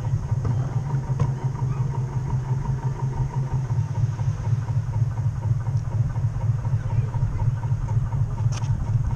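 Motor of a 1/12th scale model HMCC Badger running steadily, picked up through the hull as a constant low hum. A faint click near the end.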